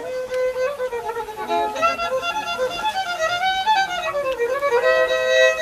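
Background music: a fiddle playing a melody, mostly single held and gliding notes.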